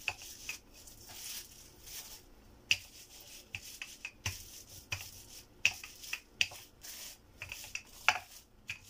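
Wooden rolling pin rolled back and forth over dough inside a plastic bag: the plastic crinkles and rustles, with frequent sharp crackles.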